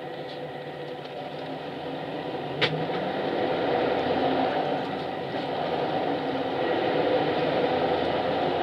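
Inside a highway coach: the diesel engine idles, then the hum grows louder about three seconds in as the bus pulls away and gathers speed. One sharp click sounds just before it moves off.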